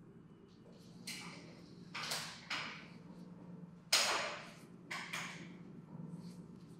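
Hands rubbing and gripping bare skin during a neck and shoulder massage: six short swishes, the loudest about four seconds in, over a steady low hum.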